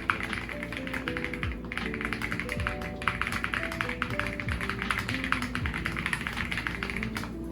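Fast typing on a Zuoya GMK70 split mechanical keyboard: a quick, dense run of keystroke clacks with a short pause about one and a half seconds in, over background music.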